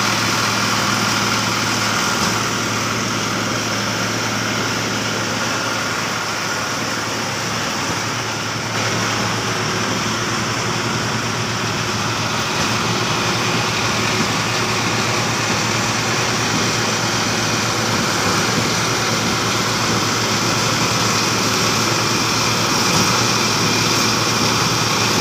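Schwing Stetter SP1200 concrete pump's engine running steadily, with a constant low hum under a wide mechanical noise.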